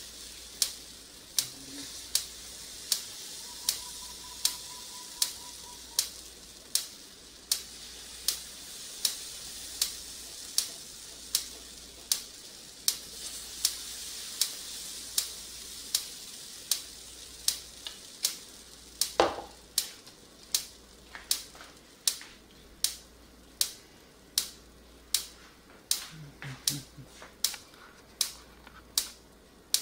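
Food sizzling in a hot pan, a steady frying hiss that fades somewhat in the second half, with a sharp click a little over once a second.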